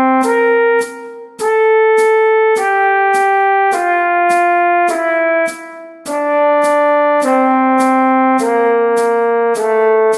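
Trombone playing a scale exercise: held notes that step up and down in pitch, with a sharp click marking each beat, about one and a half a second. The line breaks off briefly twice, as if for a breath.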